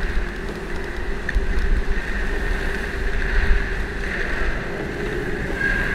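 Steady low rumble of moving air that swells and eases, over a constant hum.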